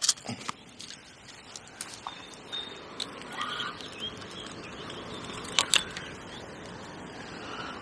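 Quiet outdoor background with faint bird calls and a few sharp clicks, two of them in quick succession about five and a half seconds in.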